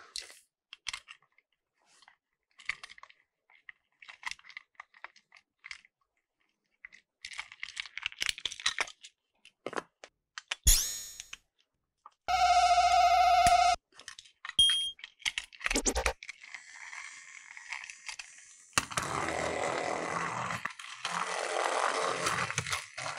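Scattered clicks and rattles of plastic toy trains being handled and taken apart, with a loud, steady electronic tone lasting about a second and a half midway, and a steady rushing whir in the last few seconds.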